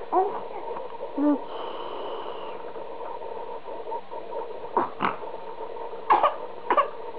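A young infant, about four months old, fussing: a few short whimpers and sharp sobbing cries with pauses between, over a steady faint hum.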